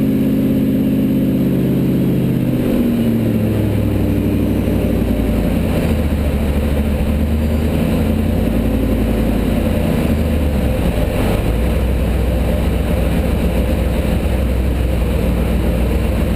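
Supercharged 2-valve V8 of a Ford Lightning pickup (RGR-built, Kenne Bell 2.8 blower) running on the dyno at a raised idle, then dropping to a lower, slightly uneven idle about three seconds in.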